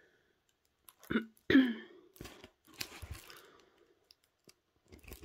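Handling of a diamond painting canvas and its thin plastic cover film: a few sharp clicks and crackles, the loudest about a second and a second and a half in, then scattered crinkling and rustling.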